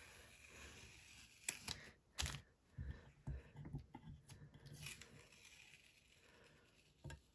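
Washi painter's tape being peeled off watercolor paper: a faint tearing rustle with a few short clicks. The tape is pulling away a little of the paper surface as it comes off.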